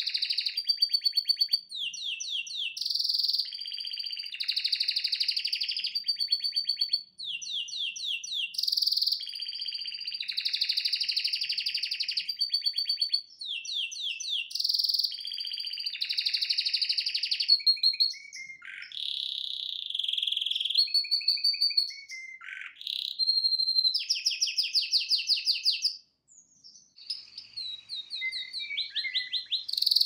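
Domestic canary singing a long, continuous song: fast trills of repeated notes alternating with held whistled tones, breaking off briefly near the end before starting again.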